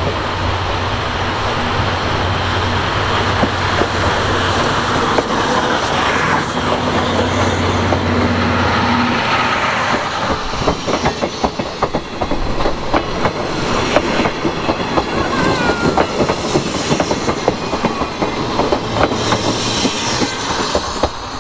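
JNR C58-class steam locomotive C58 363 approaching with its train. From about ten seconds in, its passenger coaches roll past close by, with a rapid clatter of wheels over rail joints and a brief wheel squeal midway through the passing.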